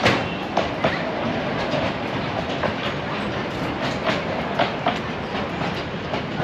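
Miniature passenger ride train running on its narrow track: a steady running noise with irregular sharp clicks of the wheels over the rail joints, fading slightly toward the end as it moves away.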